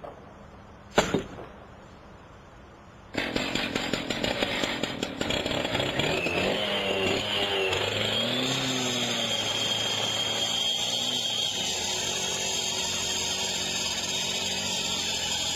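A Stihl cut-off saw's two-stroke engine comes in loud about three seconds in, revs up and down, then runs steady at high revs as its disc cuts into a security screen's mesh. Before it, one sharp knock from a pry bar worked at the screen frame.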